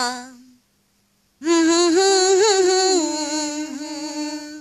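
A woman's unaccompanied voice chanting a Swahili shairi poem to a sung melody. Her phrase tails off, then after about a second of silence she holds one long, wavering note for about three seconds.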